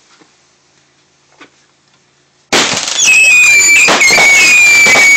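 Fireworks mortar cake firing: faint hiss and small clicks, then about two and a half seconds in it starts suddenly and very loudly, with shrill whistling that falls slightly in pitch over sharp bangs of bursting shells.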